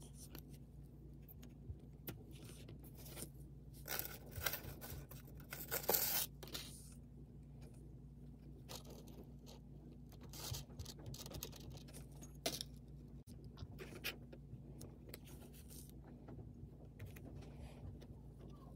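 A thin wire pick and small metal parts scraping and clicking against the diecast metal body of a Tillotson diaphragm fuel regulator as its valve and passages are probed by hand. The handling noises come in short scattered strokes, the loudest about four and six seconds in, over a faint steady low hum.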